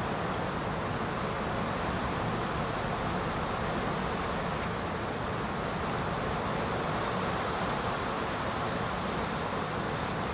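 Steady rushing background noise with a low rumble, unchanging throughout, like street traffic or wind on the microphone, with a couple of faint ticks near the end.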